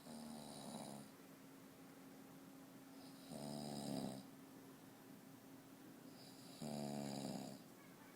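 A person snoring: three snores, roughly three seconds apart and each about a second long, each a low, buzzing drone.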